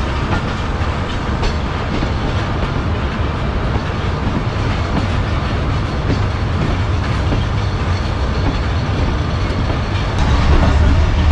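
Passenger train running at speed: a steady rumble of the coach with faint wheel clacks over the rails, growing louder about ten seconds in.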